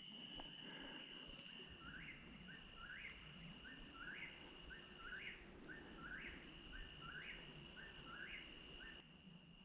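Faint eastern whip-poor-will singing its song over and over, about one phrase a second, starting about two seconds in. A steady high insect drone continues underneath.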